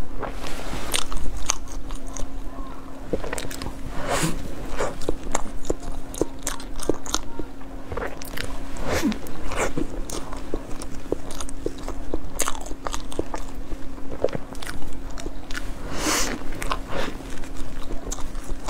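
A person biting into and chewing a flaky, crisp-skinned pastry roll: crackly crunches throughout, with a louder bite every few seconds. A steady low hum sits underneath.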